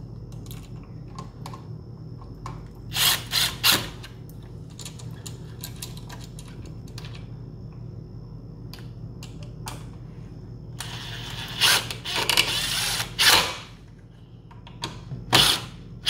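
Cordless brushless drill-driver driving the mounting screws of a three-way switch into a plastic electrical box, in short runs. There are a few quick runs about three seconds in, a longer run around twelve to thirteen seconds, and another near the end.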